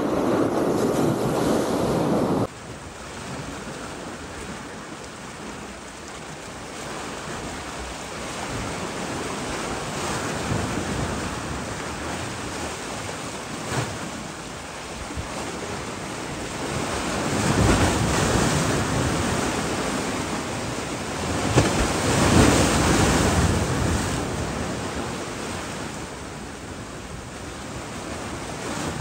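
Sea surf washing against a breakwater, with wind buffeting the microphone for the first couple of seconds; the surf swells louder twice in the second half.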